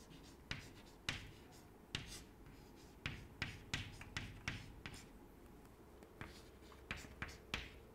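Chalk writing on a blackboard: short, irregular taps and scrapes of the chalk as letters are written, coming in runs with brief pauses between.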